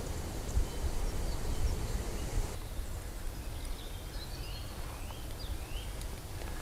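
Small birds chirping, a few short rising calls from about halfway on, over a low steady rumble of wind on the microphone.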